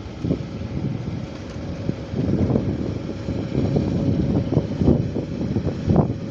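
Strong wind buffeting the microphone in irregular gusts, a loud low rumble that swells and drops.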